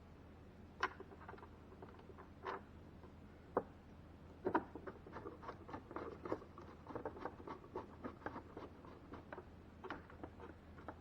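Faint, irregular small clicks, taps and scratches of hand work on the ice maker's plastic parts and screws. They are sparse at first and come thick and fast from about halfway in, over a faint steady low hum.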